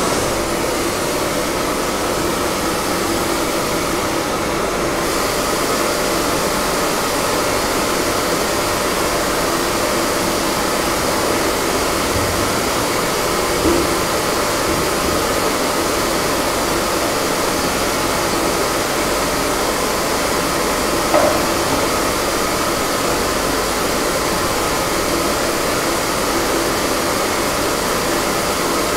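Loud steady rushing noise of a machine blowing air. Two light knocks come about halfway through and again about seven seconds later, as the bell is handled with a tool.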